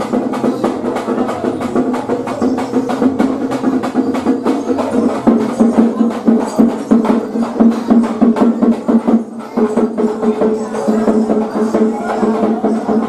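Festival music: fast, dense drumming and hand percussion with a steady held pitched tone over it. Just past nine seconds in there is a brief dip, after which a second, higher held tone comes in.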